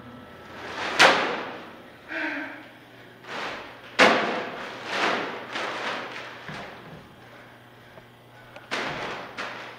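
Heavy clay-filled plastic trash bags slammed and dropped onto a concrete floor: a string of thuds, the hardest about a second in and about four seconds in, each ringing out in a reverberant space. Softer knocks and plastic rustling come between them.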